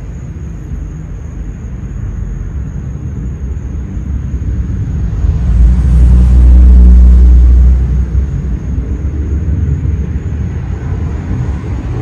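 44-inch Hunter Dominion ceiling fan running, heard as a loud, uneven low rumble that swells about five and a half seconds in and eases about two seconds later, with a faint steady high whine throughout.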